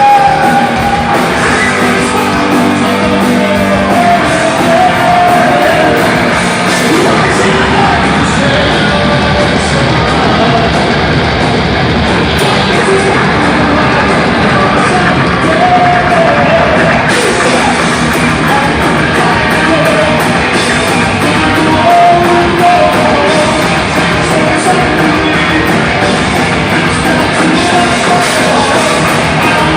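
Live heavy rock band playing loudly, with guitar and vocals.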